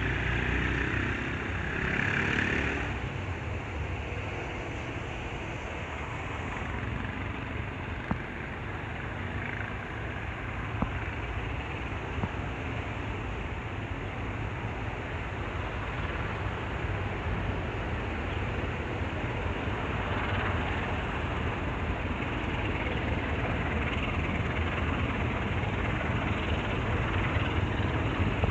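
Train running along the track: a steady low rumble with hiss, with a brief pitched note in the first few seconds.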